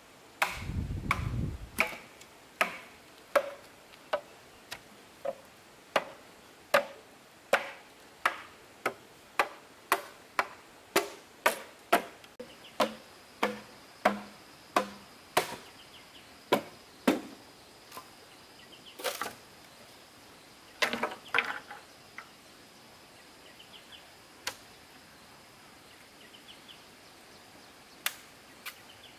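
Steady chopping strikes on wood, about one and a half a second, that stop after about seventeen seconds and are followed by a few scattered blows.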